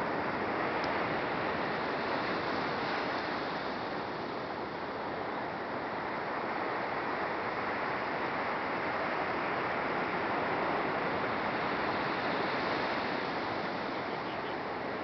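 Ocean surf breaking on a sandy beach: a steady wash of noise that swells a little about ten seconds in.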